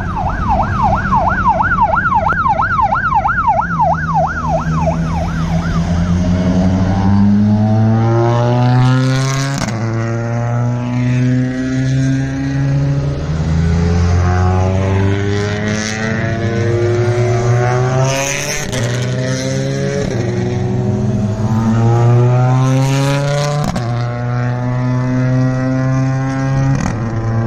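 A siren yelping fast for the first few seconds, then a succession of WRC rally cars accelerating hard past and away. Their engine note climbs in pitch and drops back at each quick upshift, over and over.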